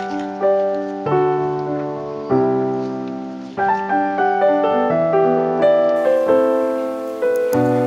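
Calm background piano music: chords and single notes struck and left to ring away.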